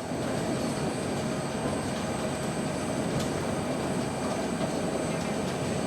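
Steady mechanical running noise with a faint, constant hum, fading in at the start and then holding level.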